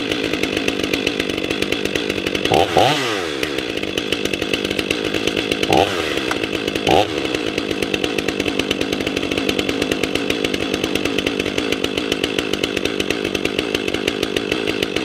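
Stihl MS 500i fuel-injected two-stroke chainsaw running at idle just after a cold start at about 23 °F, with three quick throttle blips around three, six and seven seconds in.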